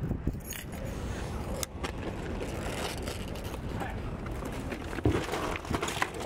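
Shopping bags being loaded into an SUV's cargo area: rustling and handling noise over a steady street background, with a sharp thump about five seconds in.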